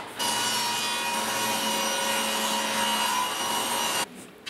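A power saw cutting wood: a steady hiss with a constant whine for about four seconds, starting and stopping abruptly.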